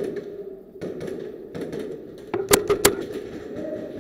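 Two sharp airsoft gun shots about a third of a second apart, a little over halfway through, with a few fainter clicks before them, over a steady background murmur.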